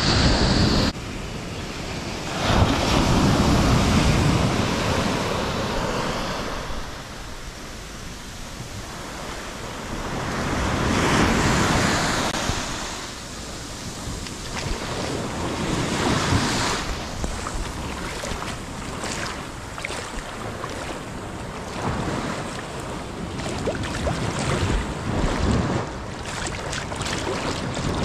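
Rough ocean surf breaking on a sandy beach. The wash swells and falls as each wave comes in, every few seconds, with wind noise on the microphone.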